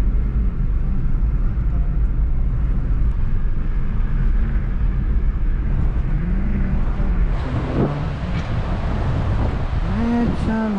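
Car driving, heard from inside the cabin: a steady low engine and road rumble. About seven seconds in it gives way to a wider, steady rushing hiss, the sound of the fast-flowing Indus River.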